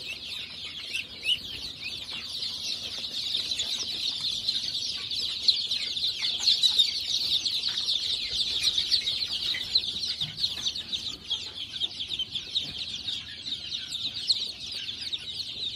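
A brood of young chicks peeping without pause, many high, short cheeps overlapping into a steady chorus.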